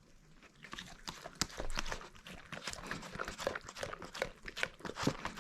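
A dog licking and chewing up yogurt mixed with its crushed medicine: a quick, uneven run of wet smacking and lapping clicks, several a second, growing louder about a second in.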